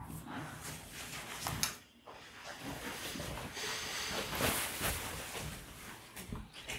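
Microphone handling noise: faint rustling and hiss with a few soft knocks and clicks.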